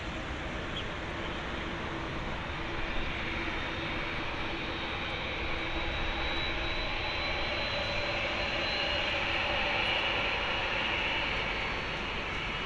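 Boeing 787-9's GEnx turbofan engines running at taxi power as the airliner turns and rolls past: a steady jet whine with a thin high whistle. It swells a little about two-thirds of the way through.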